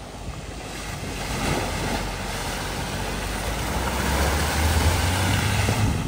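A vehicle driving through deep floodwater: a steady rush and splash of water over a low engine rumble, both growing louder toward the end, then cutting off suddenly.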